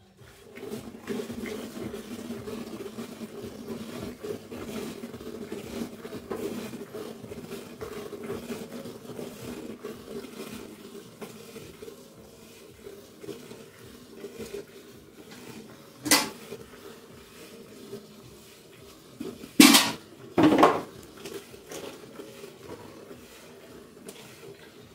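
Milk squirting by hand from a water buffalo's teats into a steel pail, in a rapid steady rhythm that is stronger in the first half and fainter later. Three louder sharp noises cut through it, one past the middle and two close together a few seconds after.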